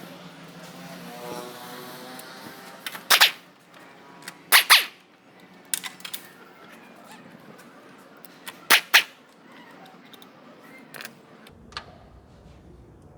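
Sharp knocks in the workshop, mostly in close pairs: one about three seconds in, two about four and a half seconds in and two more near nine seconds, with smaller clicks between them. A faint pitched hum sounds in the first two seconds.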